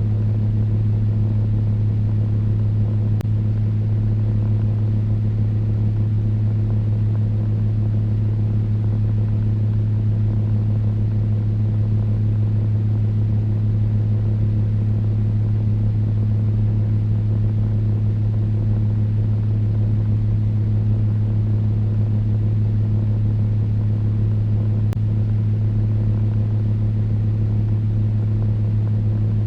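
Electric fan running steadily: an even low hum with a soft rush of air above it, unchanging throughout.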